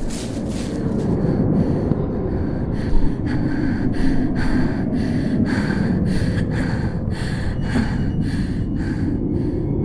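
A person breathing hard and fast, quick breaths about two a second, over a steady low rumble.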